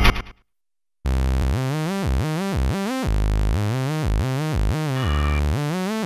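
Electronic synthesizer music: after a brief silence, a pulsing synth line sets in about a second in, with repeated rising pitch sweeps several times a second.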